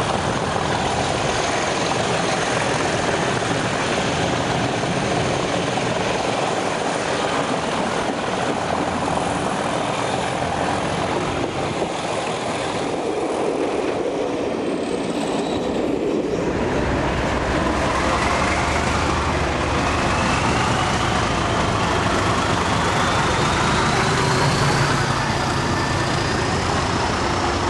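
English Electric Class 37 diesel locomotives working hard under power, heard from a carriage window behind them. About halfway through, after a cut, a Class 37 runs past at close range, with a whine rising steadily in pitch as it gathers speed.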